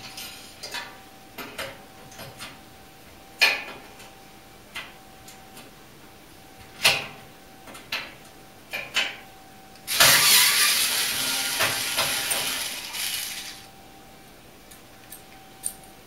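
Clicks and knocks of a cordless drill's bit seating on the heater-box screws of a clothes dryer, then about ten seconds in the drill runs for about three and a half seconds, backing out a rusted screw.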